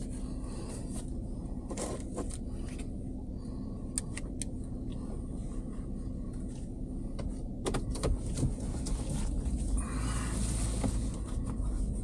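Pickup truck's running engine, a steady low hum heard from inside the cab. Over it come a handful of light clicks and a short rustle near the end as the driver handles his cap and sunglasses.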